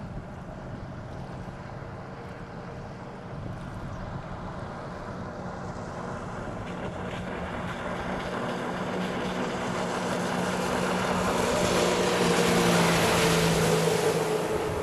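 Jet ski engine running as it comes closer, growing steadily louder with a rushing hiss rising alongside, its pitch dropping a little as it passes closest near the end, then beginning to fade.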